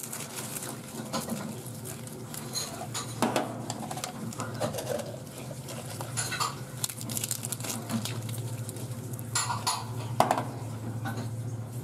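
Utensils clinking and scraping on a steel cold pan in irregular taps, with light pattering as crisp chips and sprinkles are dropped onto the plate. A steady low hum runs underneath, stronger in the second half.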